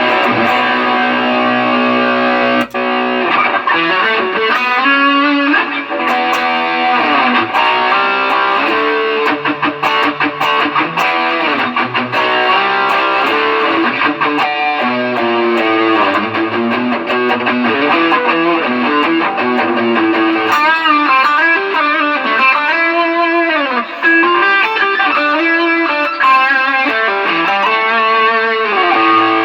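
Electric guitar played through a Line 6 Helix LT multi-effects processor, held chords giving way to fast lead lines with string bends and vibrato. It is a sound test showing the unit working again after its rain-soaked circuit boards were cleaned.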